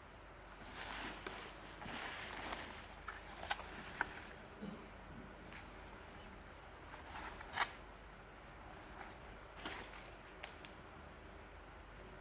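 Packaging being handled and opened by hand: bursts of rustling and crinkling, with several sharp clicks and snaps. It goes quiet about two-thirds of the way in, with a few last clicks near the end.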